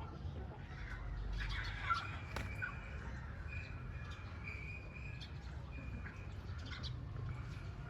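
Birds chirping: a string of short, clear calls at one steady pitch, with scattered clicks and a low, steady rumble underneath.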